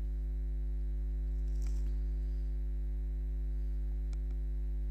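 Steady electrical mains hum, a low buzz with a stack of overtones, with a faint click about four seconds in.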